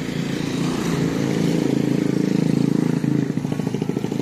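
Motorcycle engine running, growing louder to a peak about three seconds in and then easing off.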